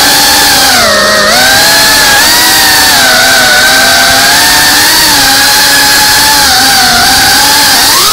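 FPV drone's brushless motors and propellers whining loud and close, heard from the onboard camera, the pitch dipping and rising as the throttle changes, with a quick upward swoop at the very end.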